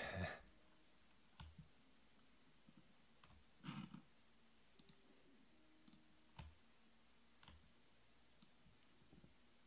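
Near silence in a small room, with a few faint, scattered clicks and two short soft noise bursts, one right at the start and one about four seconds in.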